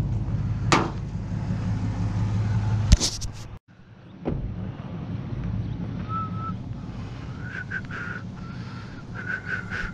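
A vehicle's engine running with a steady low hum, ended by a sharp click and a sudden brief dropout a little over three seconds in. After it, a quieter steady rumble with a few faint, short high chirps near the end.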